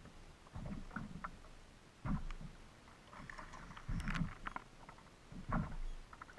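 Choppy waves slapping against a plastic kayak hull, making irregular low thuds about once a second, mixed with sharper knocks and clicks from the rocking boat and its gear.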